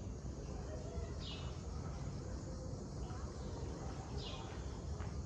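A short high chirp, falling slightly in pitch, heard twice about three seconds apart over a steady low rumble. A couple of faint ticks like footsteps come near the end.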